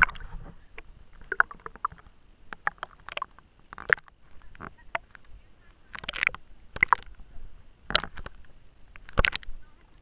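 Lake water sloshing and splashing against an action camera held at the surface, with irregular sharp splashes and gurgles as the camera dips under the water and comes back up.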